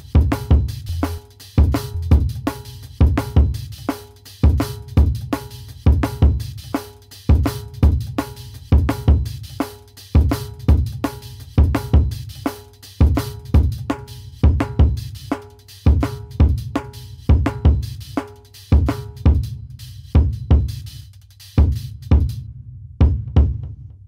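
Music track with a steady drum-kit beat of kick, snare and hi-hat. The beat thins out near the end.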